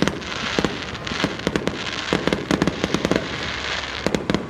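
Aerial fireworks going off in quick succession: many sharp bangs and crackles over a continuous rumble of bursts.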